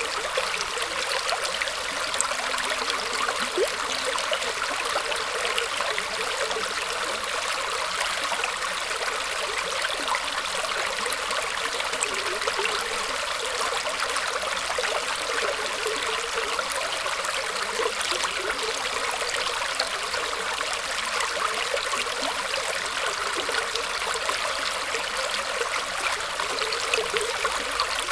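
Shallow stream of water trickling and flowing through tree roots, a steady splashing hiss without pause.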